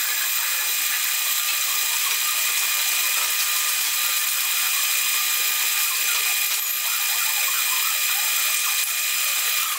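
Small benchtop metal lathe running steadily, spinning a brass workpiece in a four-jaw chuck while a drill bit in the tailstock chuck bores into it: an even motor-and-gear whine with a few steady high tones over the hiss of cutting.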